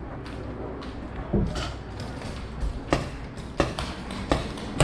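A few sharp clicks at irregular intervals, roughly half a second to a second and a half apart, over a steady low rumble.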